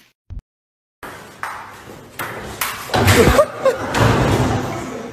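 A person crashing into a table football table and falling onto a hard floor: a run of knocks and clatter building to a loud jumble of thuds about three to four seconds in, then fading.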